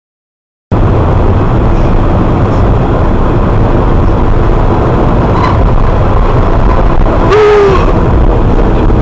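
Steady, loud road and wind noise of a car driving at highway speed, heard through a dashcam, starting abruptly after a silent moment under a second in. About seven and a half seconds in, a brief pitched tone sounds over it.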